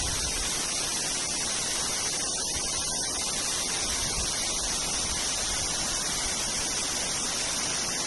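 Waterfall cascading down a rock face, a steady, even rushing hiss of falling water.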